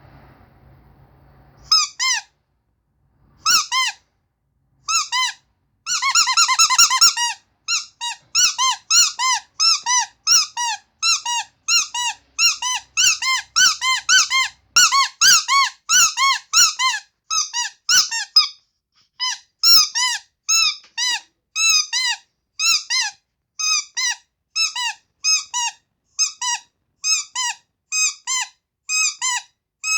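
Carrot-shaped squeaky toy squeezed over and over, each squeak a short high squeal that rises and falls in pitch. After a faint start, a rapid run of squeaks comes about six seconds in, then a steady pace of about two squeaks a second.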